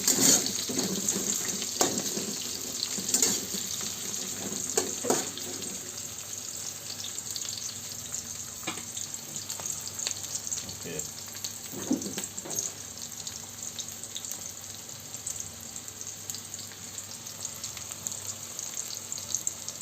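Chopped onions frying in hot oil in a pan, a steady sizzle. Scattered clicks and scrapes of a spoon stirring against the pan come in the first few seconds.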